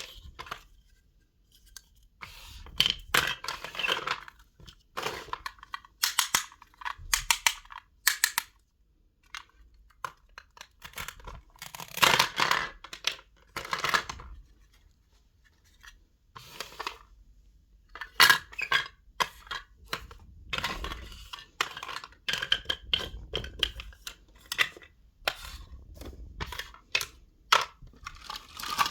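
Tiny toy kitchen pieces being handled: irregular clicks, clinks and short scraping, rustling sounds, with brief pauses between.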